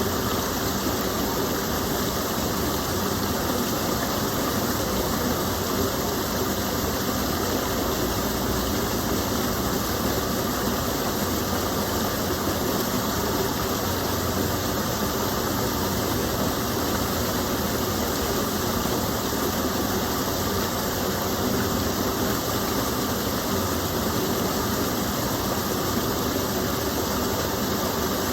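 Gentle stream of water pouring over a small fall, a steady unbroken rush.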